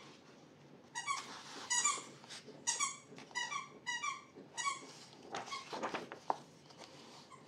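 Rubber squeaky toy squeaked over and over in quick bunches of short squeaks, with paper rustling from a turned page near the end.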